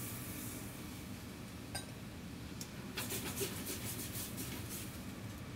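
Kitchen handling sounds over a steady low hum: a single clink with a brief ring about two seconds in, as the small ceramic cup is set down on the stainless steel counter, then a quick run of faint clicks and crackles as the metal tongs and the pan of wine-and-stock braising liquid are handled on the gas range.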